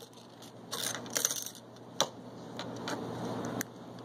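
A handful of sharp, irregular clicks and small metallic rattles: a plastic car key remote and its key ring being handled while a tiny screw is worked out of it with one hand.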